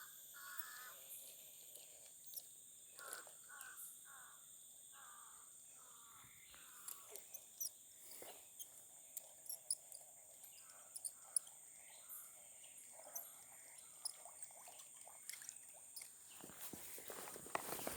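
Faint outdoor ambience: insects buzzing steadily at a high pitch, with a crow cawing a few times in the first several seconds. Scattered light clicks throughout, and a louder rustle near the end.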